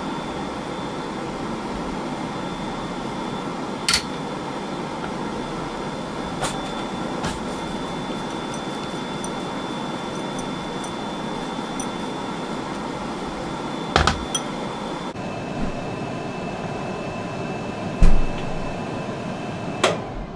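A steady machine hum, like a household appliance running, with a few sharp clicks and knocks. The hum's faint whine shifts to a lower note about three quarters of the way through.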